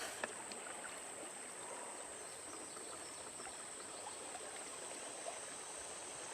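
Steady rush of river water, with a steady high-pitched whine over it and a few faint clicks.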